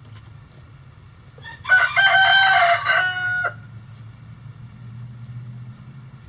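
A rooster crowing once: a single loud crow of about two seconds, starting about a second and a half in, its last part quieter before it cuts off.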